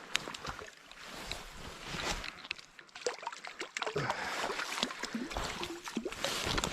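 Water splashing and sloshing as a hooked trout is fought close in, with scattered irregular clicks and knocks.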